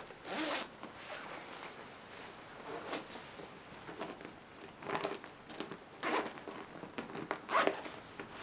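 Short bursts of rustling from a quilted nylon jacket as a hand digs into its pockets for money, a few times over, the loudest near the end.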